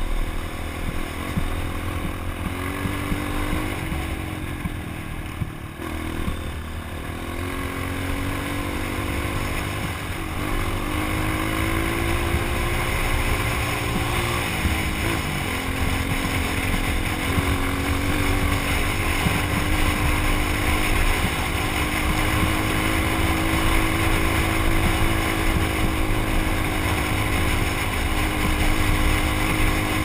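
Dirt bike engine running under way, heard from the rider's own motorcycle. Its pitch dips and climbs again three times in the first half, then holds a steadier, slightly louder note, over a low rumble of wind on the microphone.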